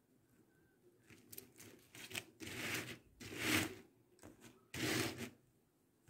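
Hands rubbing and brushing over a cloth-covered work surface and a laid-out coral bead netting, three loud swishing rubs in the middle with fainter rustles before them.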